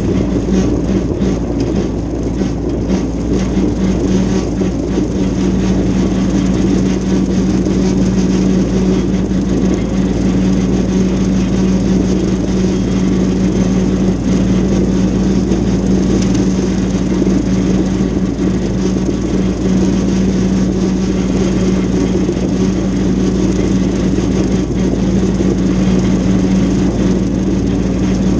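Mahindra diesel tractor running steadily at working speed while driving a PTO-powered brush hog rotary cutter through tall grass, a constant even drone with no change in engine speed.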